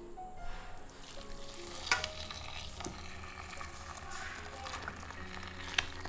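Pig-ear broth boiling hard in a stainless steel pot, a steady bubbling sizzle, with two sharp clinks, one about two seconds in and one near the end.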